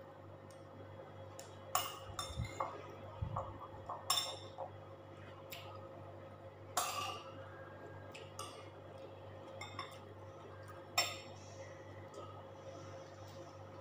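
Irregular clinks and clicks of a metal fork against ceramic dishes and of mussel shells being handled, a cluster in the first few seconds and then single clinks every second or two.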